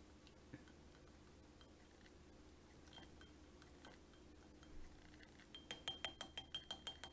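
A spoon clinking against a small glass jar of melted crayon wax: a few faint clinks while stirring, then a quick run of taps on the jar, about seven a second, with a ringing glassy note, near the end.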